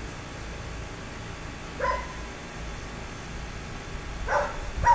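A dog barking: one bark about two seconds in and two more close together near the end, over a steady low background noise.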